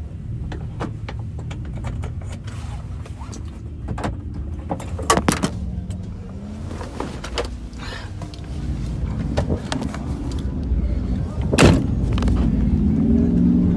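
Low steady rumble of vehicle engines running, swelling louder in the last few seconds, with a few sharp knocks and clicks, the loudest about twelve seconds in.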